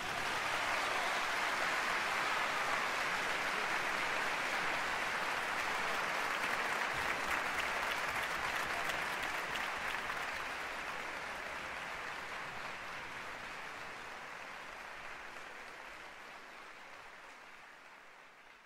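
Audience applauding, steady at first, then gradually fading away over the last several seconds.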